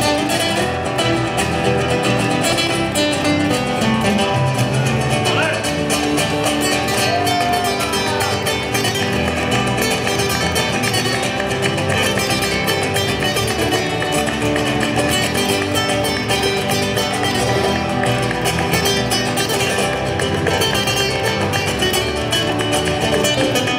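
Two nylon-string acoustic guitars, played through a small amplifier, performing a continuous Latin-style piece with many rapid plucked notes.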